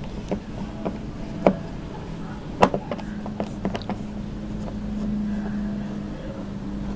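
Screwdriver working the mounting screws on the rim of a 10-inch Sansui subwoofer in its carpeted box: scattered small clicks and taps, with two sharper clicks about a second and a half and two and a half seconds in, over a steady low hum.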